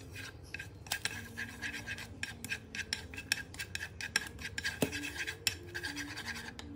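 Chopsticks tapping and scraping against a nonstick frying pan in quick, irregular clicks, stirring chopped scallions frying in a little oil.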